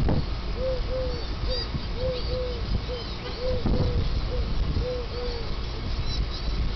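Wind buffeting an outdoor microphone, with a bird cooing over it in short hooting notes, often in pairs, that stop about five seconds in. Faint high chirps come and go.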